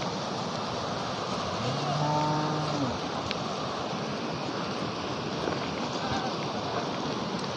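A cow moos once, a single drawn-out low call lasting about a second, starting a couple of seconds in. It sounds over the steady rush of a mountain stream.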